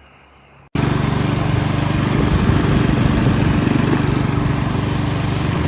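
Mountfield SP41 lawnmower's 123cc ST120 petrol engine running steadily at a constant speed. It cuts in suddenly under a second in.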